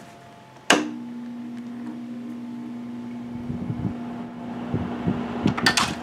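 A click as a 2017 Kool King 5,000 BTU window air conditioner is switched on, then its fan motor starting on low with a steady hum while the compressor is not yet running; the rush of air grows louder a few seconds in, and a few sharp clicks come near the end.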